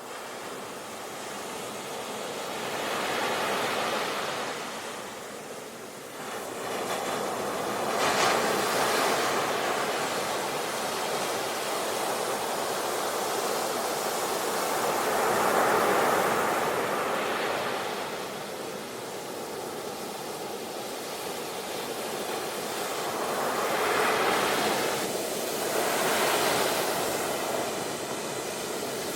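Ocean waves breaking and washing onto the shore, the surf swelling and easing several times.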